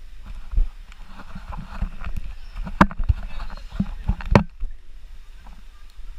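Water sloshing and splashing, with a scattering of sharp knocks; the two loudest knocks come about three and four and a half seconds in.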